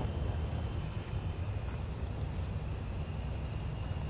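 Steady high-pitched insect trill, with low wind rumble on the microphone.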